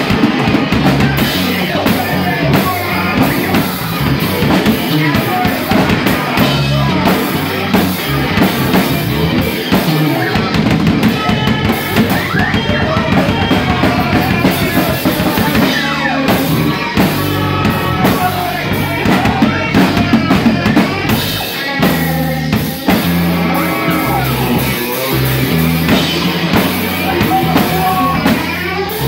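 A live band playing loud rock music, with a drum kit pounding steadily under guitar.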